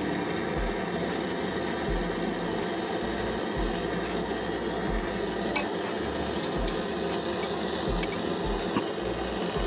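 Hose-fed gas torch flame burning with a steady hiss while it heats a soldered copper water-line joint to soften the solder so the fitting can be pulled apart. A few light clicks and taps come over it in the second half.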